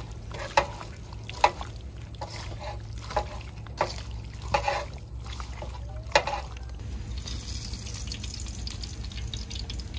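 Wet squelching and slapping of raw Bombay duck (loitta) pieces being kneaded by hand with spices and oil in a metal bowl, several sharp squishes in the first six seconds. Then a steady trickle begins about seven seconds in, as cooking oil is poured from a plastic bottle into a wok.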